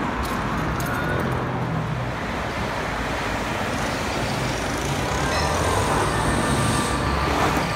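Steady road-traffic rumble from passing vehicles, an even noise with a strong low rumble.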